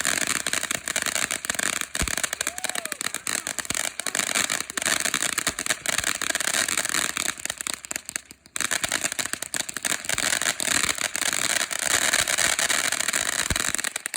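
Consumer firework crackling densely and continuously, with a brief lull about eight seconds in, and cutting off at the end.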